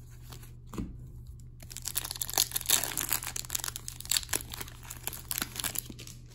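Foil wrapper of a hockey card pack crinkling as it is torn open by hand, after a brief knock about a second in.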